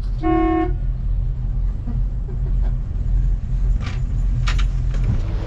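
Sea Ray 310 Sundancer cruiser's engines running with a steady low rumble. There is a short beep near the start and two brief knocks about four seconds in.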